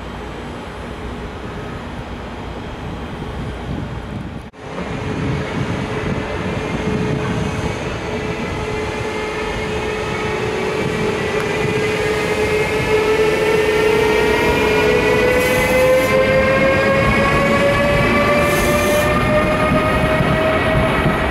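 SNCB class 18 electric locomotive pulling a train of double-deck coaches, accelerating past over the rumble of wheels on rail. Its traction whine climbs steadily in pitch as it gathers speed. The sound cuts out briefly about four and a half seconds in.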